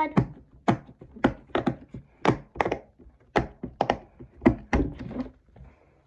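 Silicone pop-it fidget toy having its bubbles pushed in one after another by fingertip: a quick run of sharp pops, about three or four a second, stopping shortly before the end.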